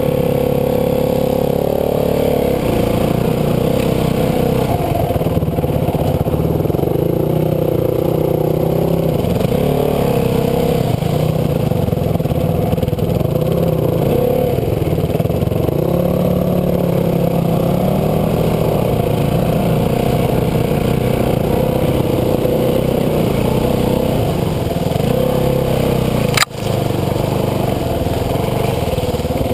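Yamaha WR450F four-stroke single-cylinder dirt bike engine running at fairly steady low revs, its pitch wavering a little with the throttle. A single sharp knock comes about three-quarters of the way through.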